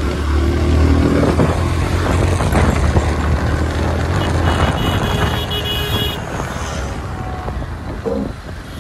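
Motorcycle engine running as it rides along a city street, with a low rumble of wind on the microphone and surrounding traffic. There is a brief high tone about halfway through.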